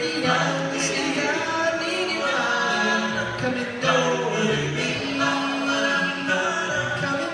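A cappella doo-wop vocal group singing in close harmony, with held chords and shifting voice parts and no instruments.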